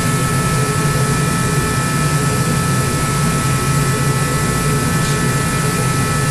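Steady, unchanging machine drone with a low hum and a few high steady tones, like a fan or forced-air heater running.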